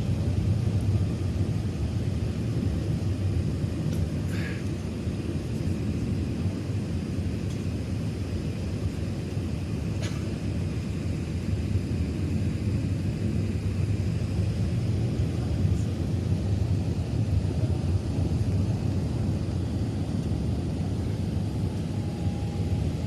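Airbus A380 cabin noise in flight: a steady deep rumble of engines and airflow with a faint high whine over it, and a couple of light ticks.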